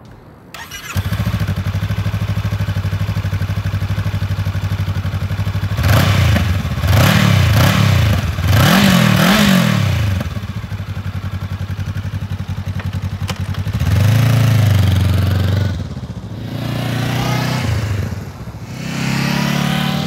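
Honda CB500X's 471 cc parallel-twin engine on its stock exhaust, started about a second in and idling steadily. It is then revved: four quick blips in the middle and a few more toward the end, each settling back to idle.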